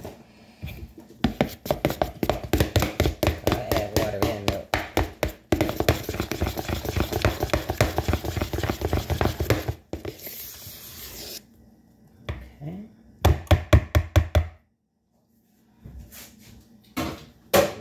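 Metal spoon beating thick pancake batter in a plastic mixing bowl: fast rhythmic knocking and slapping, several strokes a second, in one long run and then a shorter burst later on.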